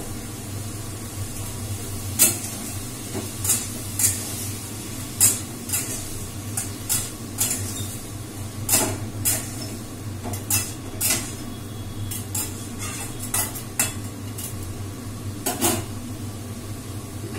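A metal spatula scraping and knocking against a metal kadai as potato pieces are stirred while they fry: irregular sharp clinks, a few close together, over a steady low hum.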